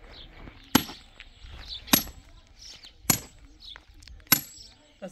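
Sledgehammer driving a steel rebar stake into hard ground: four sharp ringing metal strikes, about one every 1.2 seconds.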